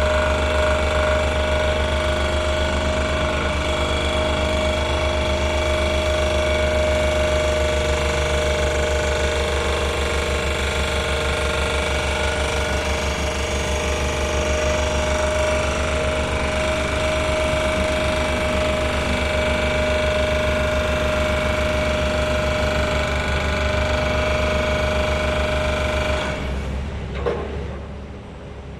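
Sheet pile driver running, a loud rapid steady pounding with a constant machine drone, which stops suddenly about two seconds before the end.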